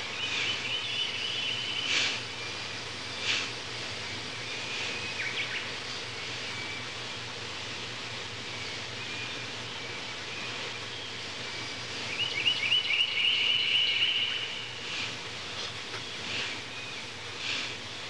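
Outdoor ambience of birds chirping and trilling over a steady background hiss. One trilled song comes right at the start and a longer, louder one about two-thirds of the way through, with short single chirps scattered between.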